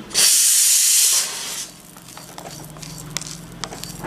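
Fresh curry leaves hissing loudly in a hot kadai with roasting chana dal for about a second, then dying down. After that comes the quieter scrape and rattle of a wooden spatula stirring the dal and leaves.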